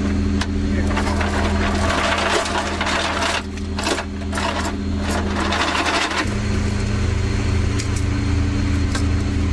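A belt of linked 25 mm dummy rounds for the M242 Bushmaster rattles and clinks, metal on metal, as it is pulled from the gun's feeder and lowered into a metal ammo can. The dense rattle lasts most of the first six seconds, then gives way to a few scattered clinks, all over a steady low hum of the boat's machinery.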